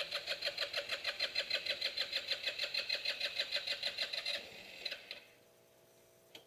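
Electric starter cranking a 150cc Ruckus-style scooter engine in a rapid, even pulsing of about six beats a second. The engine does not catch because there is no gas in it yet. The cranking stops about four seconds in, and a short click comes near the end.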